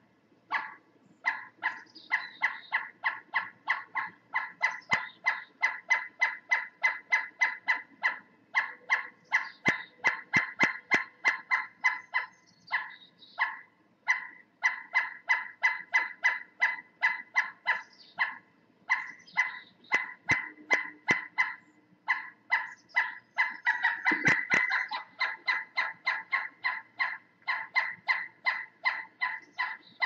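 Pileated woodpecker calling: a long, fast series of short 'wuk' notes, about five a second, broken by brief pauses. A few sharp knocks are heard around ten and twenty seconds in.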